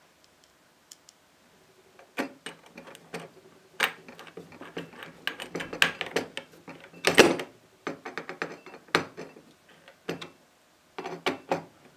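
Screwdriver turning screws into a metal trunk latch: a run of irregular clicks and scrapes with a brief pause, the loudest click about seven seconds in.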